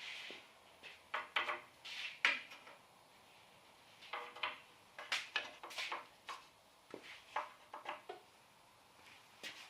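Light wooden knocks and clicks in short irregular clusters, some with a brief hollow ring, as small pieces of wood are handled and set against each other.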